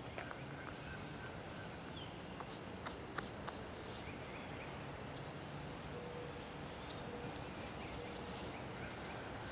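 Wood campfire crackling in the open, with scattered sharp pops, a few louder ones around three seconds in, and faint bird chirps in the background.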